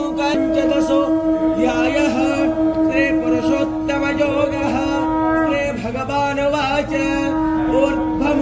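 Devotional singing, a chant with a wavering voice, over a steady held drone that drops out briefly past the middle.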